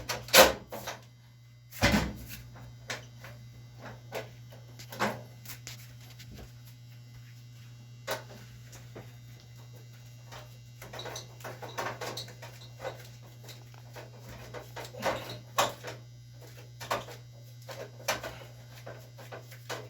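Irregular clicks, knocks and light rattles of hard parts being handled, over a steady low hum. The sharpest knocks come at the start and about two seconds in, and the rest are scattered, thicker in the second half.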